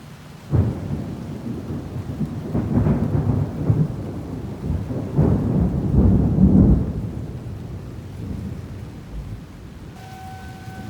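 Severe thunderstorm: deep rumbling surges over steady rain hiss, loudest about six seconds in and then dying down. Near the end a steady tornado warning siren tone starts up.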